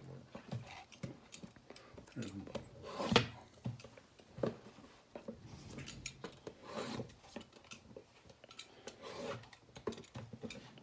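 Cardboard trading-card boxes being handled and shifted, with scattered rubbing, scraping and light knocks.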